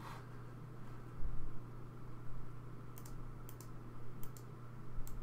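Several light, sharp clicks of computer keys in quick pairs and threes, starting about three seconds in, over a steady low electrical hum.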